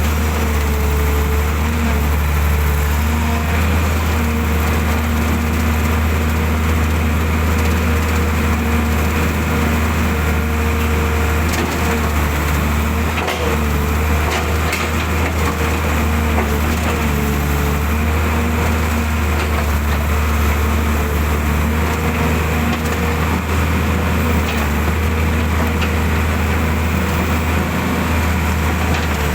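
Excavator's diesel engine running steadily under load with a wavering hydraulic whine while it digs planting holes, with scattered faint knocks.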